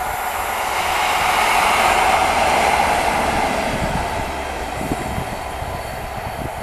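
Two Class 43 HST diesel power cars, coupled and running light, passing by. The noise swells to its loudest about two seconds in and then fades, with a few knocks of wheels on the rails and one sharp clank near the end.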